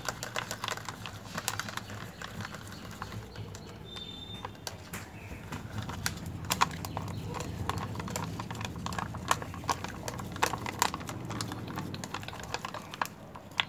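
Plastic drinking straws stirring thick PVA-glue slime in a thin plastic cup: irregular sharp clicks and taps of the straws against the cup, over a low steady hum.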